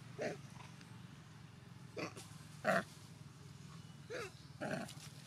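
A female long-tailed macaque gives five short calls a second or so apart, each sliding in pitch, with the third the loudest. The calls are a mother calling for her missing baby.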